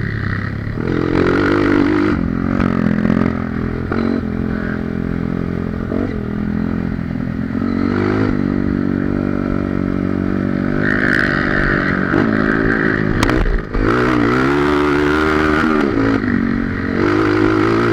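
Honda CRF230 dirt bike's single-cylinder four-stroke engine running under way, the revs rising and falling again and again, with a brief drop in level about two-thirds of the way through.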